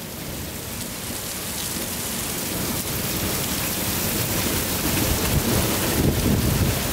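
Rain pouring down, a steady hiss that slowly grows louder, with a low rumble building in the second half.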